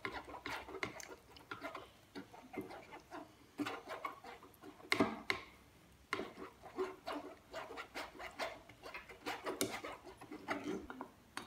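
Spoon scraping and pressing blended orange pulp through a plastic mesh strainer over a steel bowl, in short irregular strokes.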